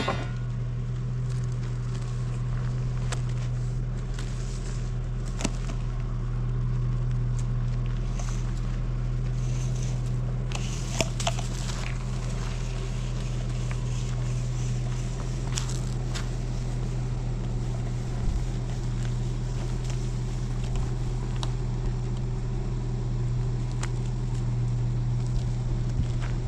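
A motor running with a steady low drone, with a few light clicks and knocks over it.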